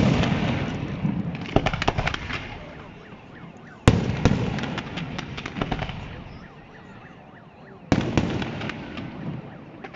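Aerial firework shells bursting with sharp bangs about every four seconds. Each bang is followed by a crackling spray that trails off.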